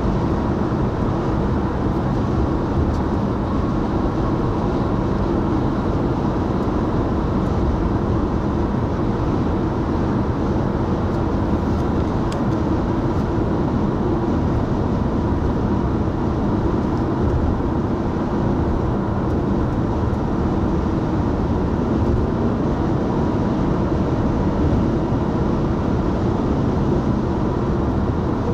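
Steady road and engine noise of a car driving at highway speed, heard from inside the car.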